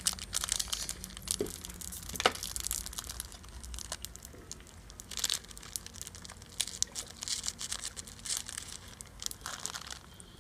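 Plastic snack wrapper crinkling and tearing as it is opened and peeled by hand, in a run of quick, irregular crackles with a sharper click about two seconds in.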